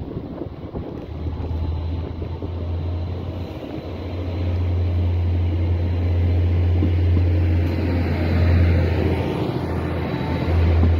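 Arriva GTW-D diesel-electric multiple unit approaching a level crossing, its engine drone and running noise growing steadily louder. A regular low pulsing starts near the end as the train reaches the crossing.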